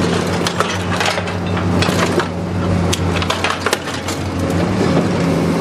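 LMD280 car dismantling machine's hydraulic arm crushing and tearing a car body: metal crunching and snapping in an irregular string of sharp cracks, over the machine's steady low drone.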